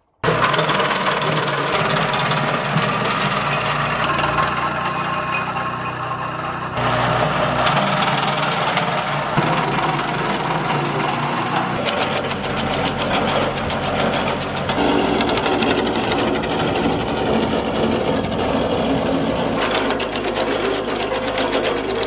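ARPAL branch chipper running and cutting branches: a dense mechanical rattle that in places turns into fast, even ticking from the cutter. The sound changes abruptly several times as different takes follow one another.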